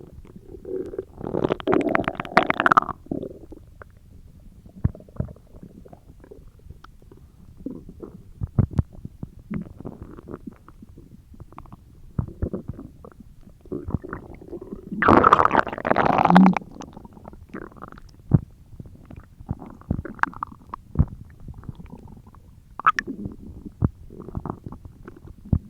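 A person's stomach growling in irregular bursts of short pops and clicks, with two longer, louder rumbles, one about two seconds in and the loudest about fifteen seconds in.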